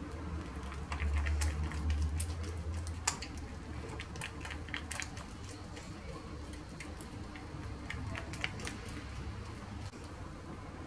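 Oiled fingers patting and spreading msemen dough thin on a granite countertop: soft, irregular little slaps, taps and squishes, with a sharper tick about three seconds in. A steady low hum runs beneath.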